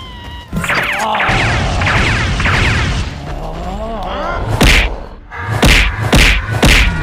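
Cartoon fight sound effects: pitched cries and swishing noise early on, then four heavy punch impacts in quick succession in the second half.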